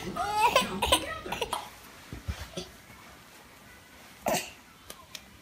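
A baby's high, wavering squeal and fussing in the first second and a half, then quiet with a few faint scuffs. A short noisy vocal burst comes a little past four seconds in.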